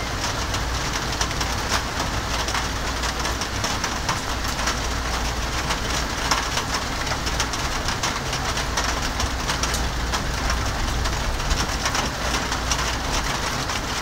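Steady heavy rain during a thunderstorm: an even hiss with many fine drop ticks, over a steady low rumble.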